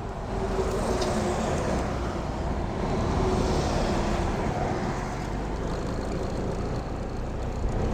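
Car driving along: a steady mix of engine hum and road and tyre noise.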